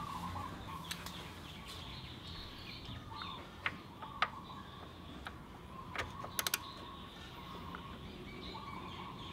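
Scattered light metal clicks of a 19mm socket and extension being fitted onto a scooter's oil drain plug, including a quick run of three clicks, with birds chirping faintly in the background.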